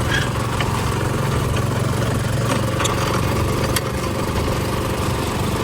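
An engine idling steadily with a low hum, with a few faint clicks about halfway through.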